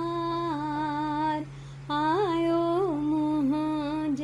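A woman singing a Sindhi folk song unaccompanied, drawing out long notes with small ornamental turns and a short break about a second and a half in.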